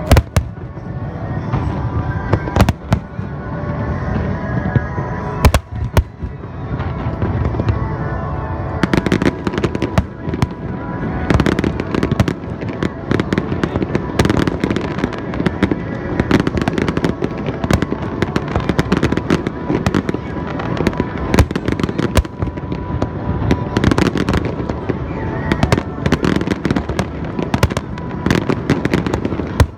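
Aerial fireworks going off: sharp bangs at first, then from about nine seconds in a dense run of crackling reports, over music playing.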